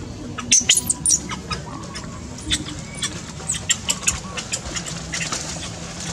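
Birds chirping: a quick string of sharp, high chirps, loudest about half a second to a second in, then scattered through the rest, over a steady low hum.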